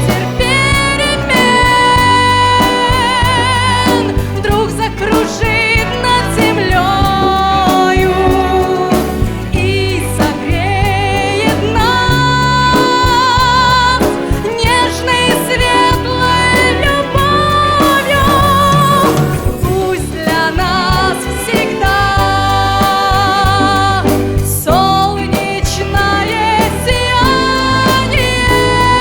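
A song: a voice singing with strong vibrato over instrumental accompaniment with a steady bass line, in phrases separated by short breaks.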